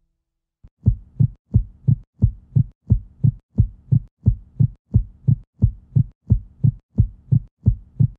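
Heartbeat sound effect: a steady run of low thumps, about three a second, starting about a second in after silence.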